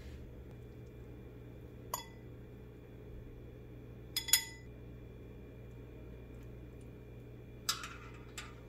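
Stainless steel tongs clinking against ceramic bowls and the pot while noodles and fish cakes are served: a single clink about two seconds in, a sharp ringing double clink a little past four seconds, and two more knocks near the end. A steady low hum runs underneath.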